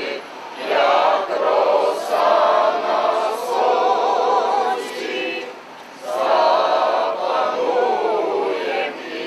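A group of men and women singing together without accompaniment, in two long phrases with a short break about halfway through.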